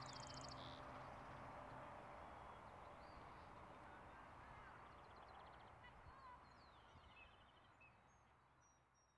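Faint outdoor ambience with small birds chirping and trilling now and then, fading out to silence near the end.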